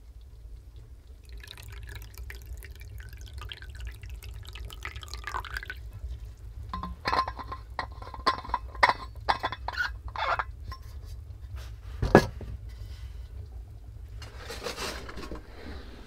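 A hot drink is poured from a stainless steel thermos into a cup for about four seconds. This is followed by a quick run of small metallic clicks and clinks, and a single sharp knock about twelve seconds in, over a steady low rumble.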